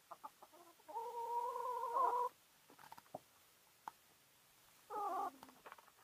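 Chickens calling: one drawn-out, steady-pitched hen call about a second in, and a shorter call near the end that drops in pitch as it finishes. Short clucks and soft ticks fall in between.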